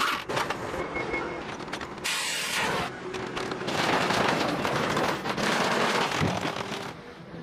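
Scrapyard machinery dismantling a truck: a pneumatic impact wrench rattling at first, then a dense, continuous clatter and crash of metal being handled and crushed.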